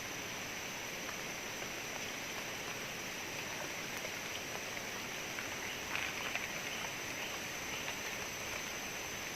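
Steady outdoor background hiss at the waterside with a constant high-pitched tone over it, and a few faint clicks about six seconds in.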